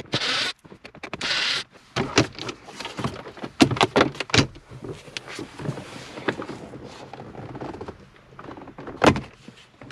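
Cordless drill-driver whirring in two short bursts as it backs screws out of plastic dashboard trim. Then a run of clicks, knocks and rattles as the plastic dash panels are handled, with one sharper knock near the end.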